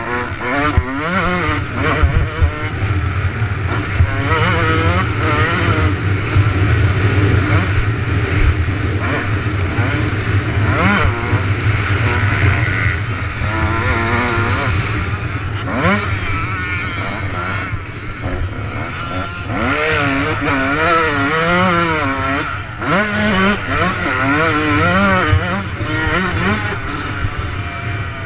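Motocross bike engine heard from a camera mounted on the bike, revving up and down rapidly as the rider works the throttle around the track, over a steady low rumble with occasional sharp knocks.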